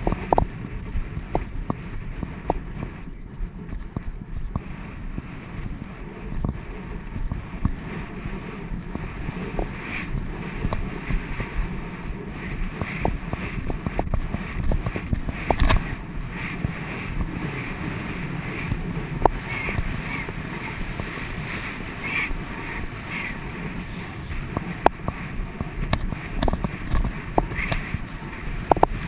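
Wind rushing over a GoPro's microphone while a horse is ridden across grass, with the rumble of hooves and tack underneath and a few sharp clicks.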